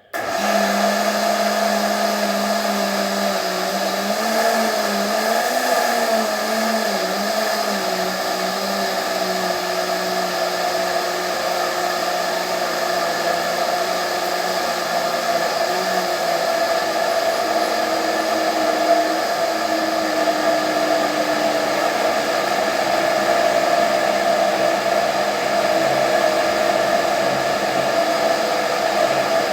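Countertop blender motor switching on abruptly and running steadily at speed, blending grated onions into a paste. A low hum under the motor wavers in pitch over the first several seconds.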